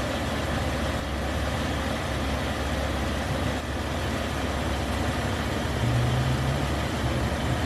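Jeep engine idling steadily with a low hum.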